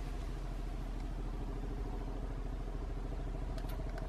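Boeing-Vertol CH-47 Chinook twin-rotor helicopter in flight, its tandem rotors beating in a fast, steady chop over the engine noise.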